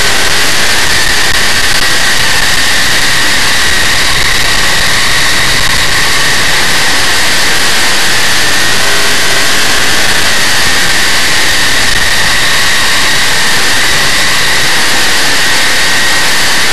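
Big-block Chevrolet V8 of a dirt modified race car running hard at racing speed, heard from the in-car camera: a loud, steady engine noise.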